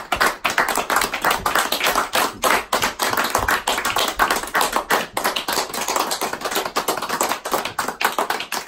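Small group of people applauding, many quick overlapping hand claps.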